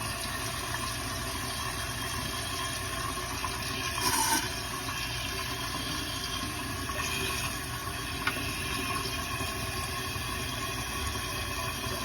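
Toilet tank refilling through a newly installed universal fill valve: a steady rush of water with a faint whine, and a brief louder surge about four seconds in.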